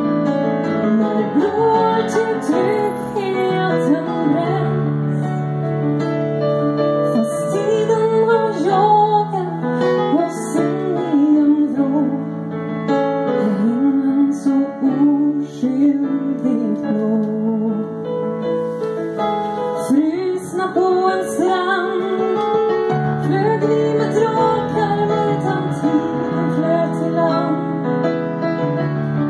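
A woman singing with digital piano accompaniment, her voice amplified through a microphone and PA speaker.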